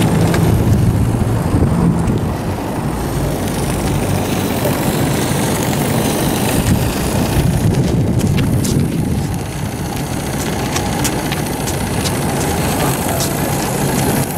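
Live-steam model truck's small steam engine running as it drives, a steady fast beat of exhaust, with a few sharp ticks from about eight seconds in.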